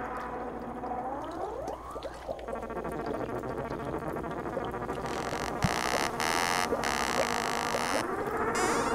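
Electronic synthesizer music: layered sustained tones with rising pitch glides about a second in and again near the end, and a hissing noise layer that comes in about five seconds in and is switched on and off in short pulses.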